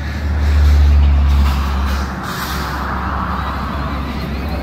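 A truck towing an enclosed trailer passing on the road: a heavy low engine rumble, loudest about a second in, followed by steady road and tyre noise.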